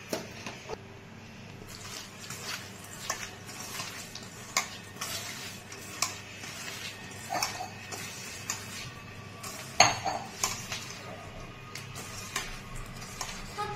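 Small fish being mixed by hand with salt and turmeric in a stainless steel bowl: irregular clinks and knocks of the metal bowl, the loudest about ten seconds in.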